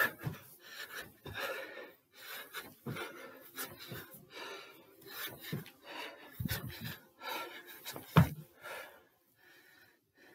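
A man panting and breathing hard during box jumps on a staircase, with dull thuds of his feet landing on the steps; the loudest thud comes about eight seconds in.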